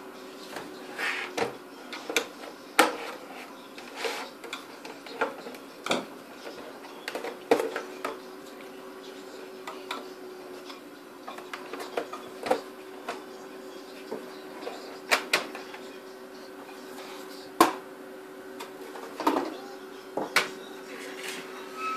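Plastic clicks and knocks from a Mercedes W169 instrument cluster's plastic housing being unscrewed and prised apart with a screwdriver. The sharp clicks come irregularly, every second or two, over a faint steady hum.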